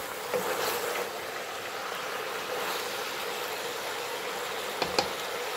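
Pork, onion and carrot stir-fry sizzling in a stainless steel pot, a steady hiss, while it is stirred with a wooden spoon. The spoon knocks twice against the pot near the end.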